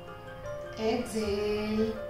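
Calm instrumental background music with soft held notes.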